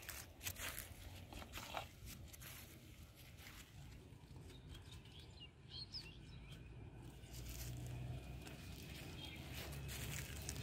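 Faint outdoor ambience: a few light knocks and handling noises in the first couple of seconds, brief high bird chirps around the middle, and a low rumble rising in the last few seconds.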